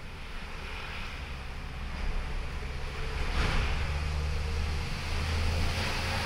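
Wind buffeting the microphone: a steady low rumble with a hiss that swells about three seconds in and again near the end.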